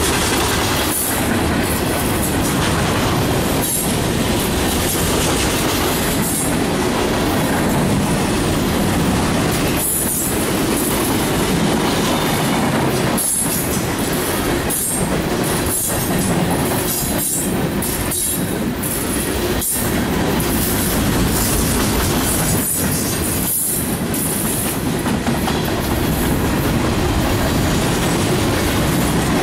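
Freight train cars (tank cars, boxcars and covered hoppers) rolling past close by: steady, loud wheel-on-rail noise with an on-and-off high-pitched squeal from the wheels.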